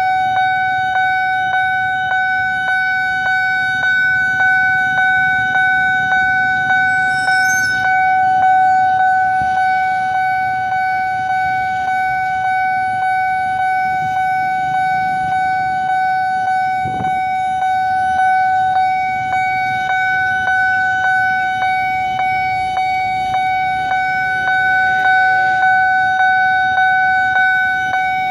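Railway level-crossing warning alarm sounding continuously: a steady electronic tone that pulses at a regular even beat, the signal that a train is approaching and the barriers are down. Road traffic idles and passes faintly underneath.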